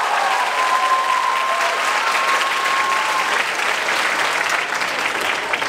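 Audience applauding loudly, with a held high tone, like a long cheer, over the clapping that fades out about three seconds in.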